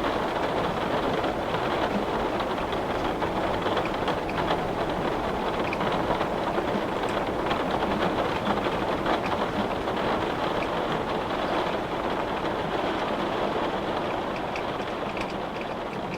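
Heavy rain beating on window glass, a dense steady rush of drops that eases off slightly near the end.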